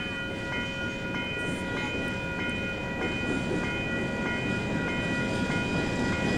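A level-crossing alarm bell rings with regular, evenly spaced strikes over the low rumble of approaching diesel locomotives. The rumble grows slowly louder as the freight train nears.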